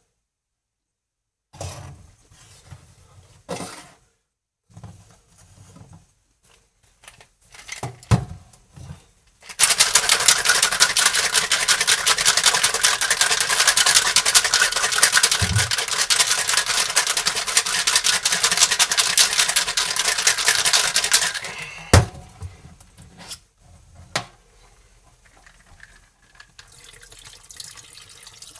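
Ice rattling hard in a metal cocktail shaker, shaken for about twelve seconds, after some knocks and clinks as the shaker is handled. A sharp knock follows, and near the end the drink is poured from the shaker over ice in a glass.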